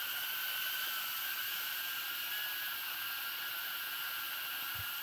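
A 3-inch cinewhoop FPV quadcopter hovering steadily, its motors and propellers giving an even high-pitched whine.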